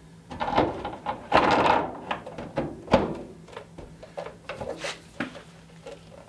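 Plastic rear spoiler being lowered onto a car's deck lid, scraping and rubbing against the painted, taped metal as its mounting studs are guided into the holes. A sharp knock about three seconds in as it drops into place, followed by lighter taps and rubs as it is pressed down by hand.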